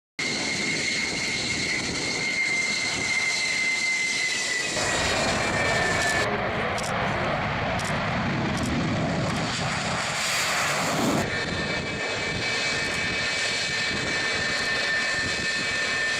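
Quadcopter drone's motors and propellers running with a steady high whine over a rushing hum. The pitch sags slightly about five seconds in, a burst of rushing noise comes around ten seconds in, and then the whine settles slightly lower.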